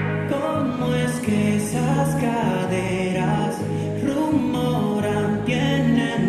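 Dance music with a singing voice over a heavy, steady bass line that comes in right at the start.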